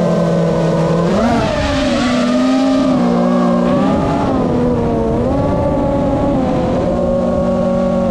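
FPV racing quadcopter's brushless motors whining, heard from the GoPro on board. The pitch jumps up about a second in, then wavers up and down with the throttle.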